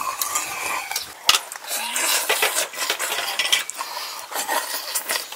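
Cooked river snails being sucked out of their shells: wet slurps, broken by repeated sharp clicks of shell.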